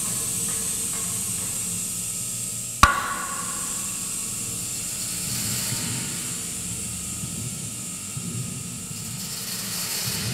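Steady hissing, with one sharp metallic clank nearly three seconds in that rings briefly.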